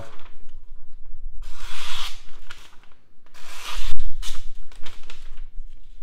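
Kansept Model 6 folding knife blade slicing through a sheet of newspaper: two rustling, tearing cuts, the first longer, followed by a sharp click about four seconds in.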